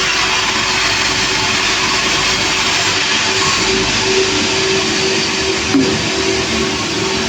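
Sawmill running: a steady, loud, dense rasping noise over a constant machine hum, with no break.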